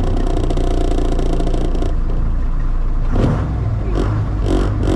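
Truck engine running steadily, with a hiss over it that stops about two seconds in.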